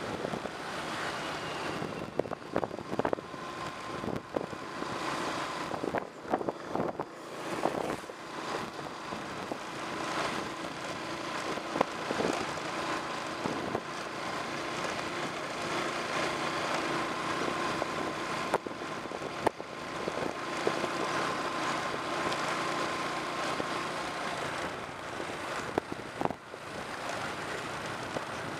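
A small motorbike's engine running steadily at riding speed, with wind on the microphone. Occasional short knocks sound over the hum.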